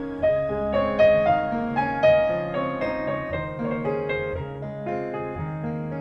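Background piano music: a melody of struck notes over lower held notes.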